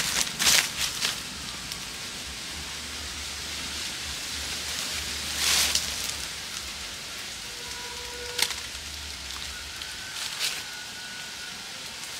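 Small open wood fire burning: a steady crackling hiss with a few sharper cracks, the loudest about halfway through, and a faint thin whistle in the later part.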